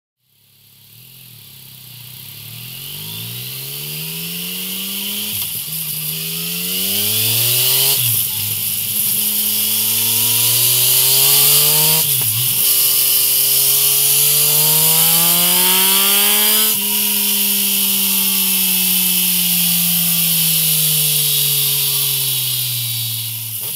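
Yamaha XSR900's 847 cc inline-three, breathing through a MIVV Ghibli full-system exhaust, run up through the gears on a dyno. The engine note climbs, drops briefly at three upshifts, peaks about seventeen seconds in, then winds down as the throttle is closed.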